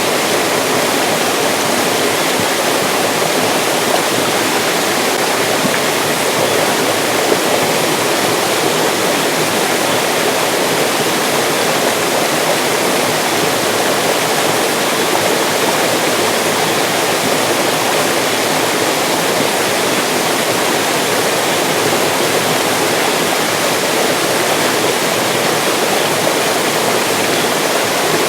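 Mountain stream rushing and splashing over rocks, a steady full-bodied water noise with no pauses.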